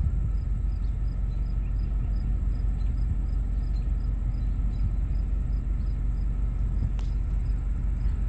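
Summer field ambience: a steady high insect trill with faint regular cricket chirps about twice a second, over a steady low rumble.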